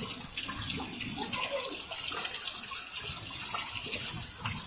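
Heavy rain pouring down and splashing, a steady hiss of water.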